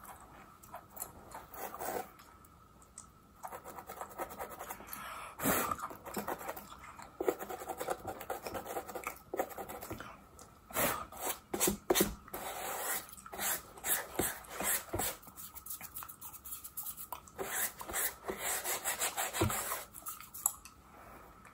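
Plastic fine-tooth comb scratching and scraping along a mannequin head's scalp at the hair parting, in short scratchy strokes that come in quick runs in the second half.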